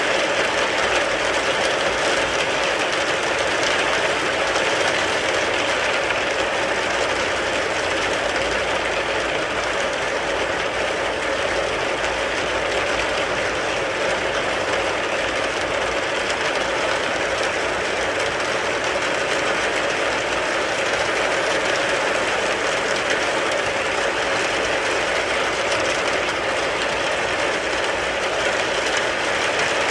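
Steady rain falling on a car, an even, unbroken noise of dense drops.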